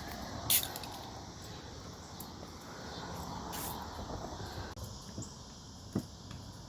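Outdoor ambience: a steady hiss with a few sharp clicks, one about half a second in, another past the middle and a smaller one near the end.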